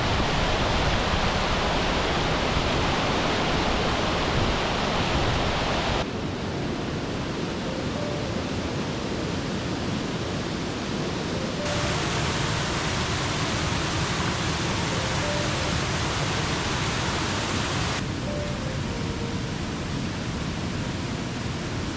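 Rushing water of a swollen mountain stream and its low waterfalls, running high after heavy rain: a steady rush of white water that shifts abruptly in loudness and tone about six, twelve and eighteen seconds in.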